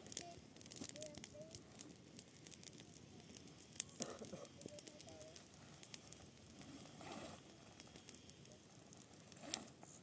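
Faint rustling and crackling of canvas tent fabric being handled, with a couple of sharper clicks about four seconds in and near the end.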